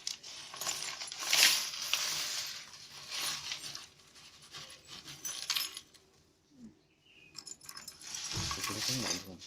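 Broken glass shards from a thermos's shattered inner liner rattling and clinking inside the flask in several bursts, as it is shaken. The sound is the sign that the vacuum glass liner is broken.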